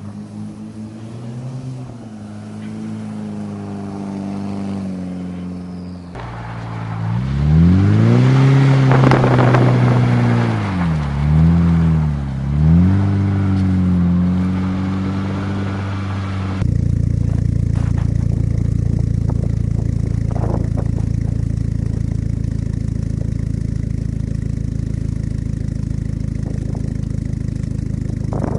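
Plymouth Laser AWD turbo's turbocharged 4G63 four-cylinder revving as the car is drifted. It is heard at a distance at first, then up close with the revs swinging sharply up and down several times. From about 17 seconds in it idles steadily at the exhaust tip.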